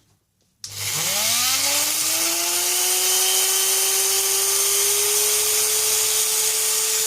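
Electric drill with a diamond-tipped bit switched on about half a second in: the motor spins up with a rising whine over a couple of seconds, then runs steadily at full speed.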